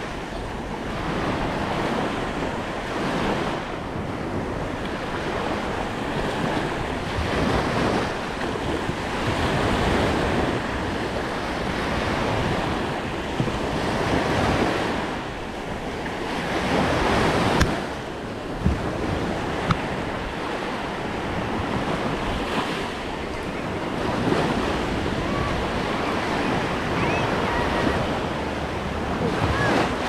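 Small waves washing up onto a sandy shore, the surf swelling and easing every few seconds, with wind buffeting the microphone. A few short sharp clicks sound in the middle.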